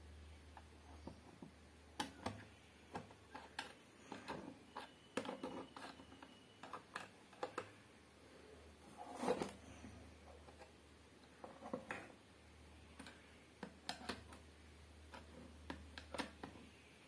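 Faint, irregular clicks and taps of a tester screwdriver's metal tip being poked into the socket holes of a plastic extension board, with one louder knock about nine seconds in, over a low steady hum.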